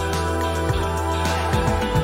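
Background music with a steady beat of low drum hits under sustained chords.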